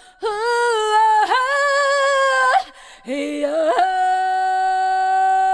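A woman singing unaccompanied in the style of Taiwanese indigenous ancient-tune chanting. Two phrases, the second ending in a long, steady held note.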